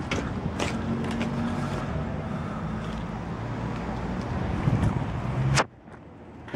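A vehicle engine running steadily with a low rumble, with a few sharp clicks near the start, swelling louder just before it cuts off abruptly about five and a half seconds in.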